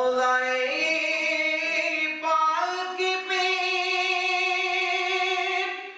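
A man's solo voice singing without accompaniment, holding long, drawn-out notes that step up in pitch, with a brief break for breath near the end.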